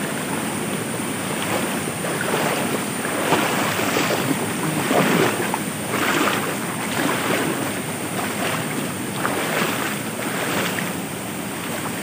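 Shallow rocky stream rushing and splashing over stones, a steady watery noise with irregular gurgling surges.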